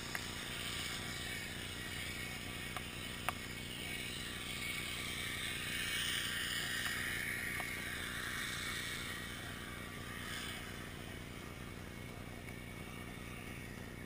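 Underwater ambient noise picked up by a submerged camera on an oyster bed: a steady hiss that swells for a few seconds in the middle, with a few sharp clicks.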